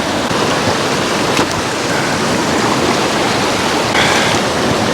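Cowlitz River water rushing steadily. A brief higher hiss comes a little after four seconds in.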